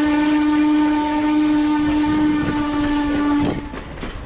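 Steam locomotive's whistle sounding one long, steady blast that cuts off about three and a half seconds in.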